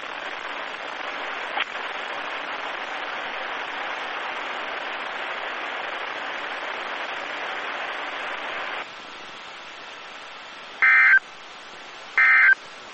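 Weather-radio receiver hiss that drops to a quieter hiss about nine seconds in, then two short, loud digital data bursts about a second and a half apart: the NOAA Weather Radio SAME end-of-message code closing the weekly test.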